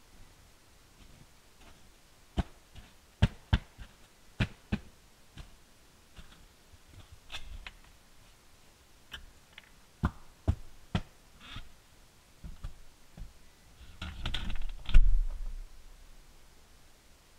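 A scatter of sharp, separate clicks and knocks at uneven intervals, then a longer rustling clatter ending in a heavier low thump near the end.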